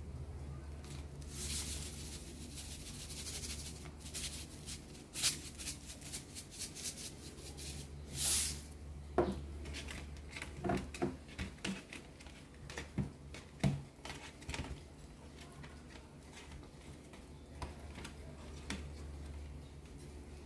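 Coarse sea salt shaken over oiled potatoes, the crystals pattering on a metal baking tray, then scattered clicks and soft knocks as the potatoes are rubbed and turned by hand on the tray. A low steady hum runs underneath.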